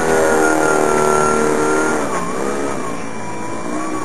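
Electric motor and large propeller of a foam slow-flyer RC plane whining at a steady high pitch, then dipping lower and wavering about halfway through.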